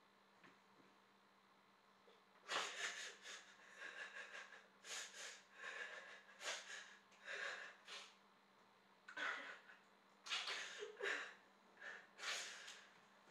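A person crying: after a couple of quiet seconds, a long run of uneven sobbing breaths, heaving in and out in irregular bursts.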